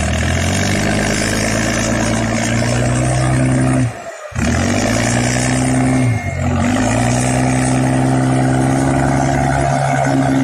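Sand barge's diesel engine running hard under heavy load while pushing through shallow water. It drops out briefly about four seconds in, and its pitch sags and recovers about two seconds later.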